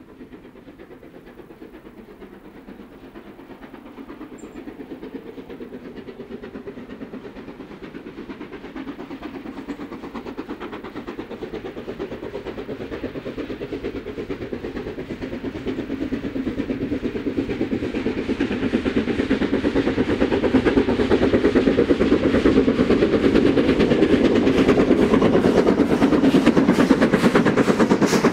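LMS Princess Coronation class Pacific 6233 Duchess of Sutherland, a four-cylinder steam locomotive, approaching under steam. Its exhaust beats and running noise grow steadily from faint to loud as it nears.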